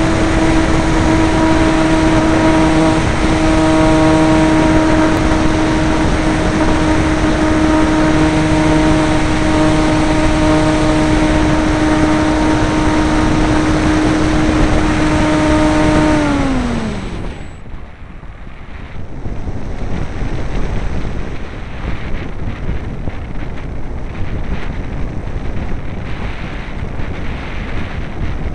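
Turnigy 330 W electric motor of a T2M Windstar 180 motor glider turning a 10x6 propeller, a steady loud whine at full power, heard from a camera on the fuselage. About seventeen seconds in the motor is cut and its pitch falls away as the propeller spins down, leaving only wind rushing over the airframe and microphone as the model glides.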